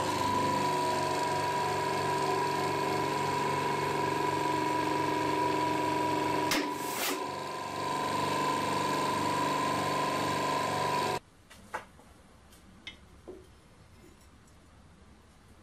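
Hydraulic press pump and motor running with a steady hum and whine as the ram crushes a steel oxygen cylinder; about six and a half seconds in come two sharp cracks as the cylinder wall splits. The machine sound cuts off suddenly a little after eleven seconds, leaving a few faint clinks as the torn cylinder is handled.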